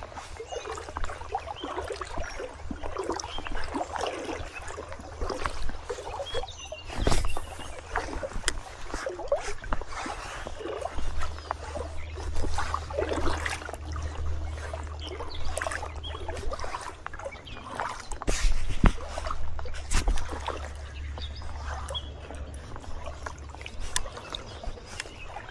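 Water sloshing and splashing irregularly around legs wading through a river current, over a low steady rumble, with a few sharp knocks.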